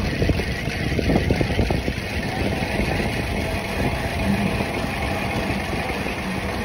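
Air rushing over the phone microphone and knobby tyres rumbling on concrete as a Trek 4300 mountain bike rolls fast down a parking-garage ramp, with a flurry of small clicks and knocks in the first two seconds.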